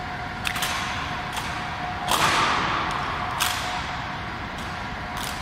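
Honor guards' rifle drill: sharp clicks and knocks of rifles being handled and boot heels striking the floor, with one louder impact about two seconds in that rings on in the hall's echo.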